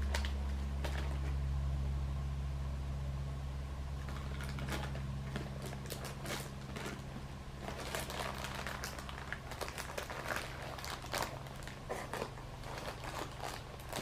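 Close handling noise: plastic packaging crinkling and light clicks and taps of a small plastic figure being turned in the hands, busier in the second half. A low hum sits underneath and fades away over the first few seconds.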